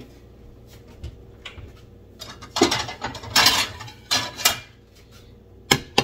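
Ceramic plates being handled on a hard countertop: three loud rasping scrapes through the middle, then three sharp clinks near the end as a plate is knocked and set down.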